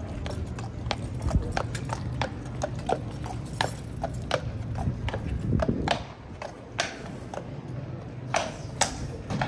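Clip-clop of several cavalry horses walking, their shod hooves striking in an irregular, overlapping patter.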